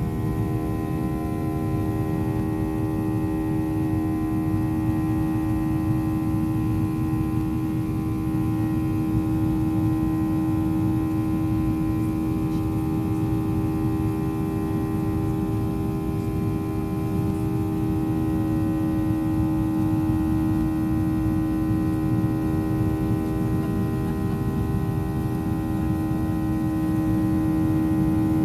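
Boeing 737-800's CFM56 jet engines heard inside the cabin: a steady drone with a strong constant tone over a low rumble.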